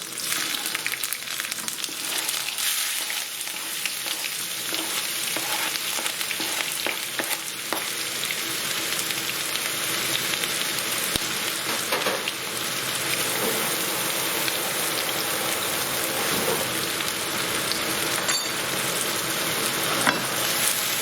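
Chopped onions, garlic and red chillies sizzling in hot oil in a pan, stirred now and then, with an occasional light scrape or knock from the spoon.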